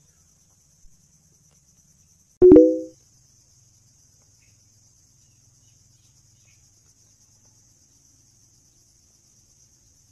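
Faint, steady, high-pitched insect chirring throughout. A single short struck tone about two and a half seconds in: a sharp click followed by a few close low pitches that die away within half a second.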